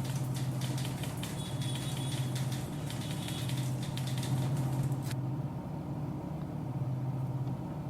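Manual typewriter keys being struck in rapid, uneven clicks that stop abruptly about five seconds in. A low hum that swells and fades runs underneath.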